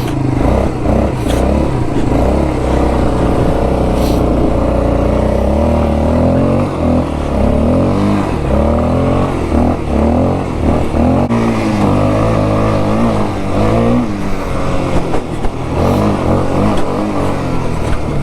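2001 Yamaha Warrior 350 ATV's single-cylinder four-stroke engine on its stock exhaust, running hard under throttle. Its pitch rises and falls again and again as the rider speeds up and backs off, and the freshly cleaned carburetor is letting it run well.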